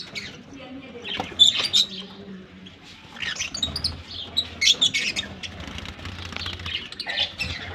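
Aviary birds chirping in short bursts of high chirps, several times over a faint low hum.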